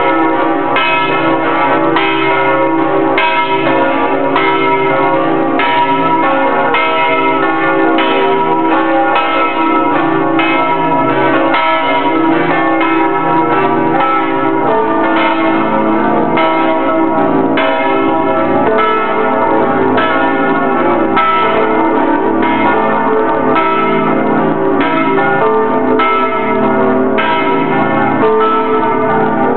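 Several large bells of St Mark's Campanile in Venice ringing the noon peal, heard at close range from inside the bell chamber. They are very loud, with many overlapping tones and fresh strikes every second or so that keep the ringing going without a break.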